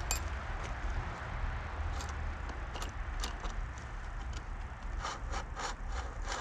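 Steady low rumble of road traffic, with scattered small clicks and scraping from hand work, several clicks in quick succession near the end.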